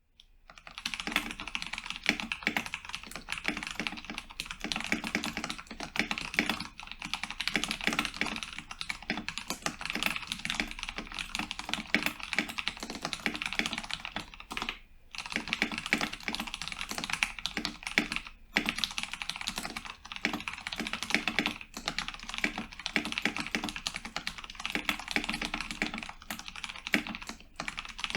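Continuous fast typing on a modded Cooler Master MasterKeys Pro S mechanical keyboard with Cherry MX Brown switches: a dense stream of key clacks, pausing briefly about halfway through and again a few seconds later.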